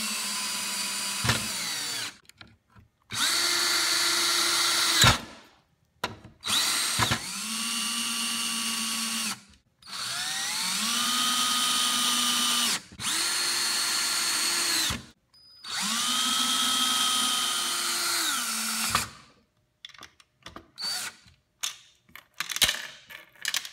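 Cordless drill-driver driving screws through metal hinges and latches into a wooden board. Six runs of motor whine, a couple of seconds each, with the pitch rising as the trigger is squeezed and dropping as it is released, and short pauses between. Near the end come a few light clicks and taps as the hardware is handled.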